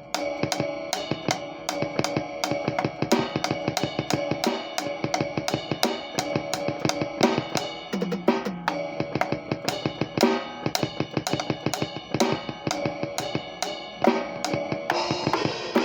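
Drum kit played freely with fast, busy strikes on the snare, bass drum, hi-hat and cymbals, the cymbals ringing on between hits.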